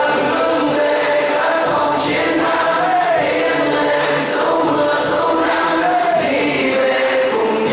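Choral singing with music: many voices singing together.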